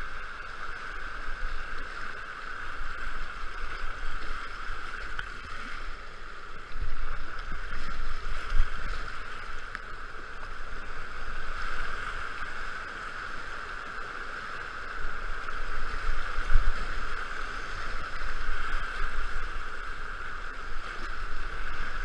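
Steady rush of high-water whitewater rapids around a kayak, with low thumps of water and buffeting at the boat now and then, heaviest about a third of the way in and again about three quarters of the way in.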